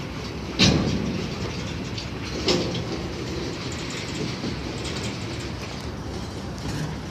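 Freight cars of a mixed freight train rolling steadily past over a road crossing, wheels clicking over the rail joints. Two sharp bangs stand out: the loudest just over half a second in, a smaller one about two and a half seconds in.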